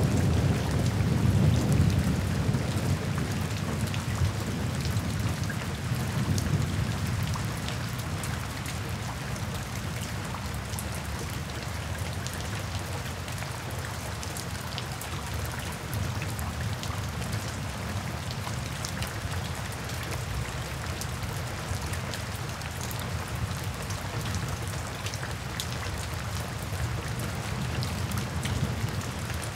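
Steady rain falling on a wet paved surface, with many small drops splashing and ticking. A low rumble of thunder sounds under the rain in the first several seconds and dies away.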